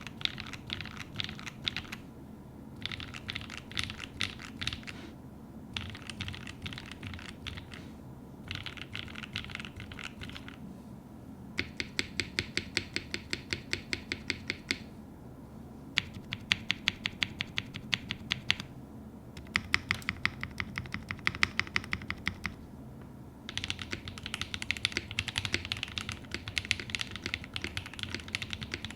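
Custom mechanical keyboard being typed on: a QK80 case with a POM plate, KTT Kang White linear switches and GMK doubleshot ABS keycaps. The typing comes in bursts of two to five seconds with short pauses between them, and some bursts are fast, even runs of keystrokes.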